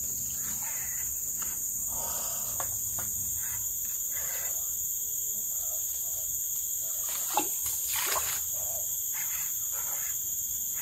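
Steady, high-pitched chorus of forest insects, with a couple of faint clicks about two thirds of the way through.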